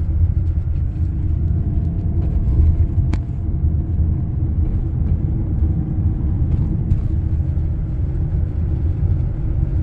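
Steady low rumble of a motorhome driving on the road, heard from inside the cab, with a sharp click about three seconds in.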